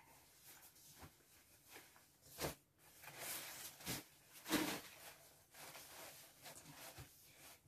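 Clothes rustling and brushing against cardboard as they are pushed into a cardboard box, with a few sharper scrapes and knocks, the loudest about four and a half seconds in.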